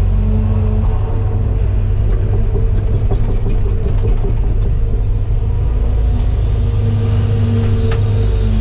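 Cat 313FL excavator's diesel engine running steadily under load as it works, with faint clicks and cracks around the middle.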